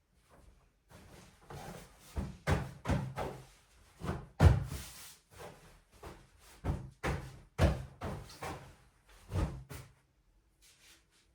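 Irregular knocks and thuds of household objects being handled and set down during tidying, about a dozen in all, the loudest about halfway through.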